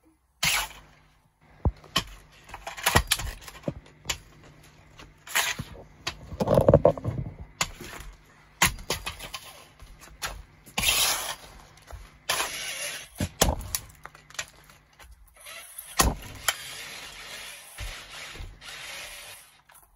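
Nike TN sneakers stomping on and trampling a toy car: irregular sharp cracks, knocks and crunches of the toy breaking, with the drop sheet rustling and crinkling under the feet. The loudest burst of crunching comes about six to seven seconds in.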